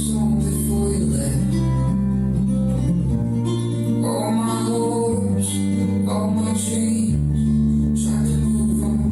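A song with guitar and a heavy, full bass line, played loud through a DBR VA1800 portable PA column speaker with its subwoofer. The bass notes change about every two seconds.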